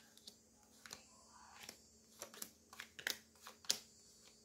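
Cards being dealt one after another onto a wooden lap desk: a scattered series of light clicks and taps as each card is slid off the deck and set down.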